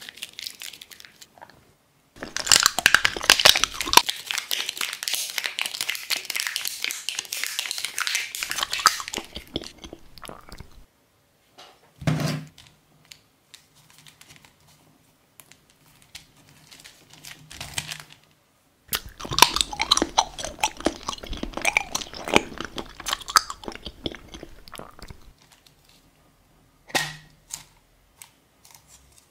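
Thin clear plastic crinkling and crunching as fingers work it, in two long crackly stretches, with a few sharp plastic clicks between them. Near the end comes a short click as a plastic tub's snap lid is handled.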